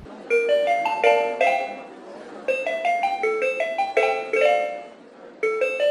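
End-screen music jingle: short pitched notes played in quick stepping runs, in three phrases with brief pauses between them.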